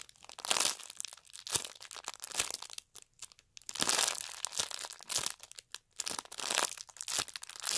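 Clear plastic packaging crinkling in irregular bursts with short pauses as a foam donut squishy sealed inside it is squeezed and turned in the hands.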